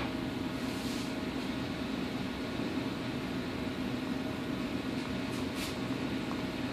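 Steady mechanical hum with an even hiss over it, from running machinery. Two brief soft hisses come about five seconds in.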